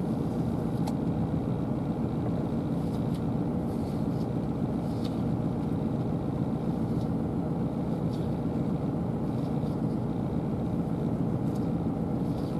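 Vehicle engine running steadily, an even low rumble, with a few faint clicks above it.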